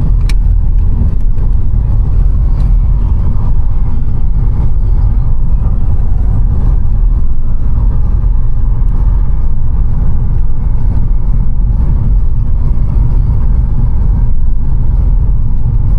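Loud, steady low rumble of a car being driven.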